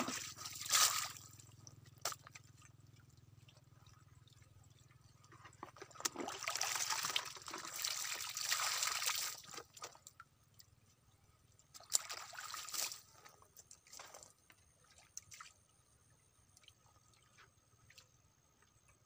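Muddy water sloshing and pouring as a plastic bucket is scooped through a shallow pool and emptied, in several splashy bursts, the longest lasting about three seconds midway through.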